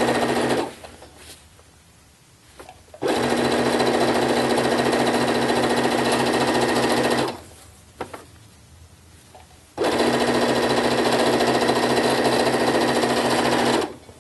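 Baby Lock electronic sewing machine stitching a sleeve seam closed, running at a steady speed in three runs. The first stops about half a second in, the second lasts about four seconds, and the last about four seconds more, with short pauses between them holding a few faint clicks.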